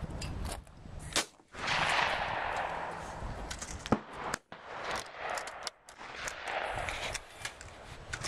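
12-gauge shotgun shots: two loud cracks about three seconds apart, the first about a second in and the second about four seconds in, with several fainter shots scattered through.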